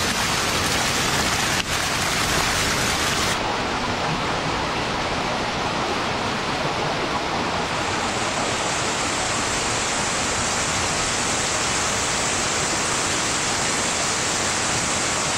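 Water pouring from two pipes and splashing into a crowded eel tank: a steady rushing splash. A brief click comes a little over a second in, and the sound turns slightly duller about three seconds in.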